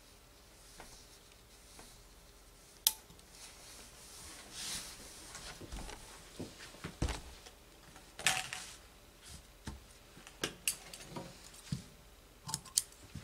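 Gravity-feed steam iron worked over fabric on a pressing table: two short hisses of steam and a few knocks as the iron is set down and pushed along. Near the end, shears snip through cotton fabric with small sharp clicks.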